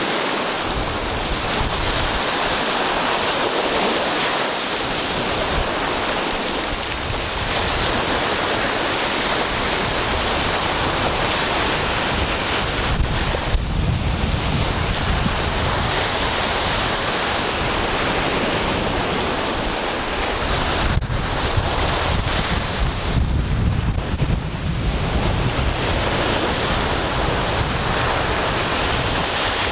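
Ocean waves breaking and washing on a shore in a continuous surge, with low rumbling gusts of wind buffeting the microphone in the middle part.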